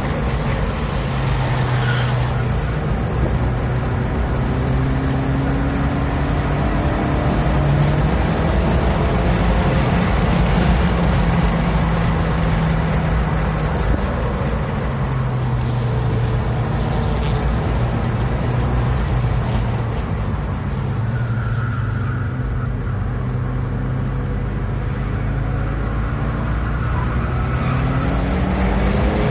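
2016 Ford Focus RS's turbocharged 2.3-litre four-cylinder engine heard from inside the cabin, running under hard throttle on a track lap. Its pitch drops about twenty seconds in as the car slows for a corner, then climbs again near the end as it accelerates.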